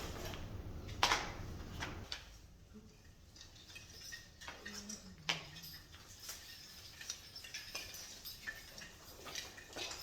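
Scattered light clicks and knocks of household things being handled, with a sharper knock about a second in.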